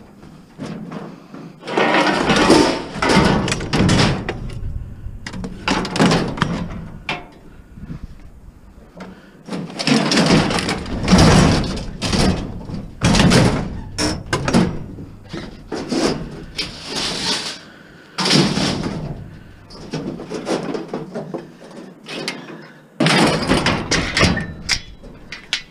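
Scrap metal and junk being shifted and stacked in a truck bed: bursts of clanks, knocks and scraping, a few seconds each with short pauses between.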